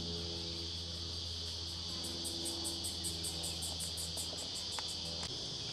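Insects chirping: a steady high-pitched buzz with a faster pulsed chirp over it, about four to five pulses a second. Under it runs a low steady hum that cuts off about five seconds in.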